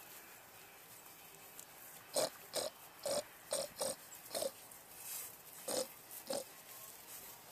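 Piglets grunting: a run of about eight short grunts that begins about two seconds in.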